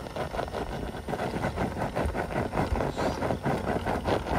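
Axial SCX6 1/6-scale RC rock crawler climbing a steep rock face, its electric drivetrain running while the tyres and chassis scrape and knock against the stone in quick, irregular clatters.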